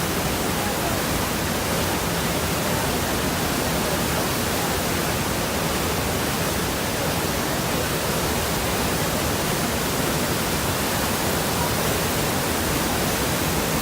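The Rhine Falls, a large river waterfall, giving a steady, unbroken rush of falling water.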